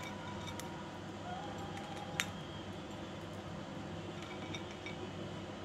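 Budgerigar pecking at and cracking seeds from a seed cluster on a plate: scattered small clicks, one sharper click a little over two seconds in, over a steady low background hum.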